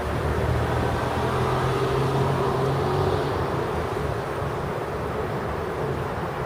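Steady city traffic noise, with a vehicle's low engine hum strongest in the first half.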